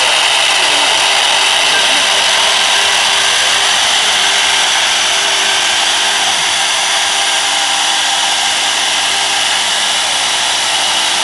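Rotary CNC router's spindle and bit cutting into a turning wooden baluster, carving its spiral twist: a steady, high-pitched whine with a hiss, unbroken throughout.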